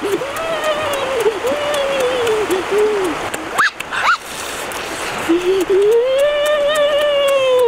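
A person's voice making long wordless, drawn-out tones that rise and fall in pitch, with two quick upward squeaks in the middle, over a steady rushing hiss.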